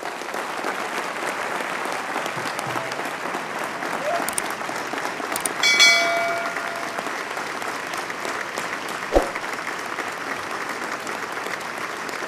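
Large audience applauding steadily after a speech. About six seconds in, a short bell-like chime of a subscribe-button overlay sounds over it, and a single knock follows a few seconds later.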